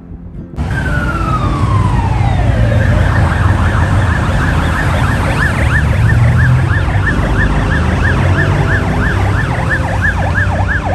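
Police car siren: one long falling wail, then a fast yelp sweeping up and down about two and a half times a second, over a steady low rumble of street traffic. It cuts in suddenly about half a second in.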